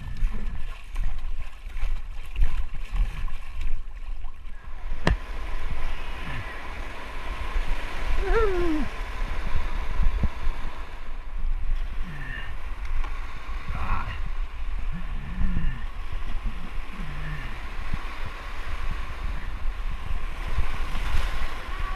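Whitewater rapids rushing around an inflatable kayak under a heavy low rumble, with a few sharp knocks in the first five seconds and several short grunts from a paddler paddling hard.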